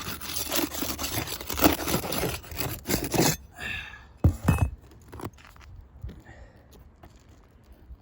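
Brittle asphalt roof shingles being pried loose: a tool scrapes and crunches under the shingle tabs for about three seconds, followed by a few sharp knocks.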